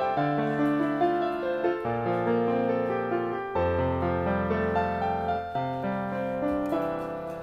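Background piano music: slow, gentle chords and melody notes, growing quieter near the end.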